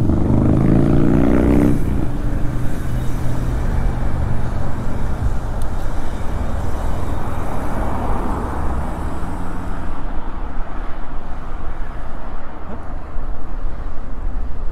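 Wind rushing over the microphone of a cyclist's camera while riding a road bike at speed in city traffic, with cars running alongside. A vehicle engine's note fades out in the first two seconds.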